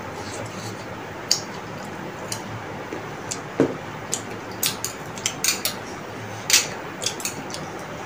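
Eating noodles with metal chopsticks: an irregular string of short, sharp clicks from the chopsticks tapping the plates and from chewing.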